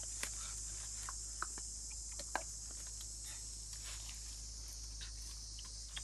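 Steady, high insect drone of a tropical forest, with scattered small clicks and leaf rustles close by.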